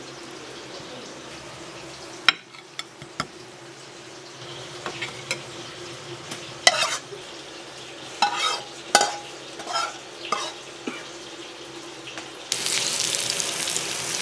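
Cooking sounds: scattered clicks and clatters of utensils against a pan over a low steady hum. About twelve seconds in, a loud sizzle of food frying in a hot pan starts suddenly and keeps going.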